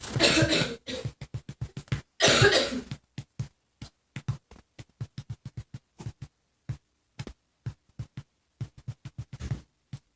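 A small child sneezing: the tail of one sneeze right at the start and another about two seconds in. This is followed by a scatter of short, faint clicks.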